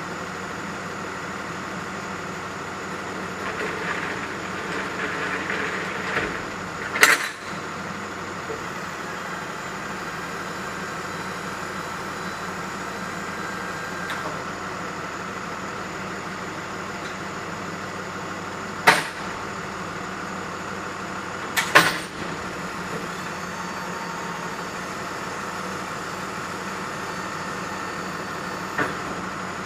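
Box truck idling steadily, with a few sharp metal clanks from its liftgate and a hand truck: one about seven seconds in, another a little before twenty seconds, a double clank a couple of seconds later, and a lighter one near the end.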